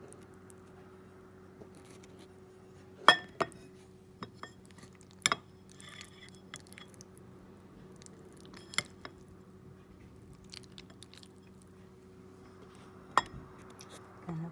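A spoon clinking against a bowl and plate as chicken salad is scooped and spread: about five sharp clinks spread out, the loudest about three seconds in, over a faint steady hum.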